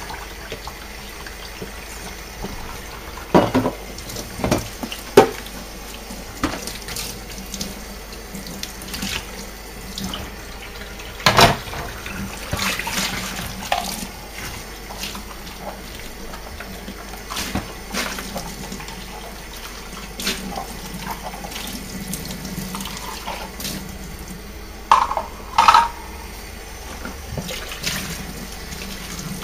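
Kitchen tap running into a stainless steel sink as clear plastic items are rinsed under the stream. A few sharp knocks cut through the water, the loudest about eleven seconds in, with two more close together near the end.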